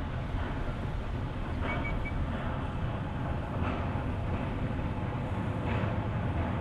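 Narrow-gauge steam train running, with a steady low rumble and a short clatter recurring about every two seconds.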